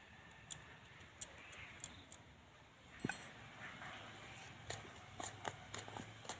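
Faint, scattered clicks and scrapes of a metal spoon against a steel mixing bowl as flour is stirred into a wet semolina and egg mixture; the sharpest click comes about halfway through.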